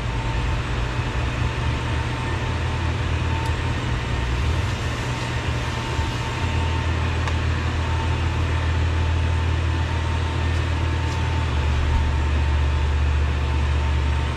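Steady low machine hum with a faint constant high tone over it, and a couple of faint clicks.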